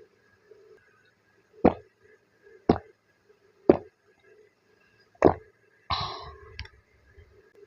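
Four sharp taps or knocks about a second apart, then a brief crackle and a click, as snacks and their packaging are handled before eating.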